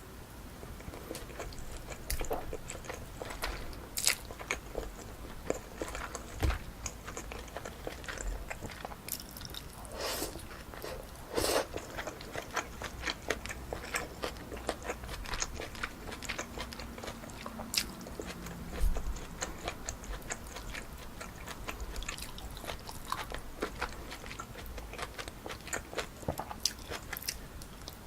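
Close-miked chewing and biting, a dense run of small wet clicks and crackles, as someone eats pork kimchi stew with rice.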